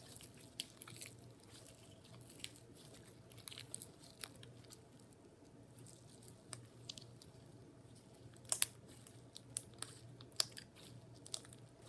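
Jiggly slime being squished and poked by hand, giving faint, scattered sticky clicks and pops, with a few sharper ones in the second half.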